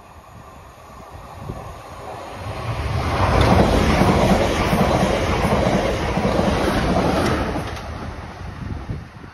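Class 444 Desiro electric multiple unit passing close by on the rails. Its wheel and rail noise builds over about two seconds, holds loud for about four seconds, then fades as the rear of the train goes by.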